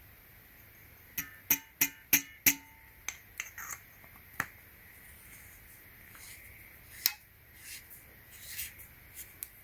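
Small clicks and rattles of handling a battery flashlight as its battery is inserted and the end cap refitted: a quick run of about five sharp clicks with a slight metallic ring about a second in, then softer scattered clicks and one sharp click near the end.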